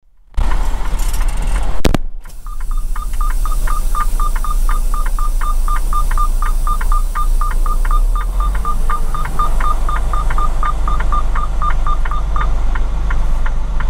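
Tractor-trailer truck's diesel engine running with a steady low rumble inside the cab, with a sharp knock near the start. From about two seconds in, an electronic warning chime beeps rapidly and evenly, about four times a second, stopping shortly before the end.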